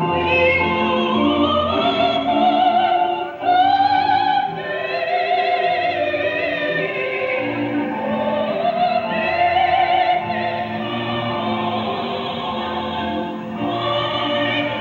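A singer holding long, wordless notes with a wide vibrato over instrumental accompaniment with a bass line.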